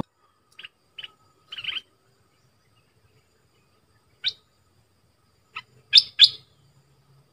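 A bulbul calling in short, sharp chirpy notes: three quick calls in the first two seconds, a single note past four seconds, then a louder run of notes about six seconds in, with silence between. This is a recorded call of the southern Thai 'nok dok taeng' bulbul, the kind played to train young birds to sing.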